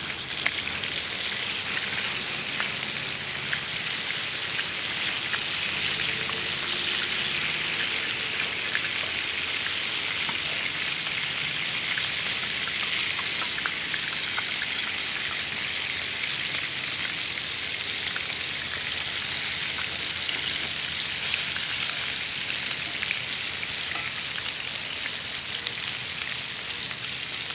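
Food frying in a pan over an open wood fire: a steady sizzle with many small crackles and pops.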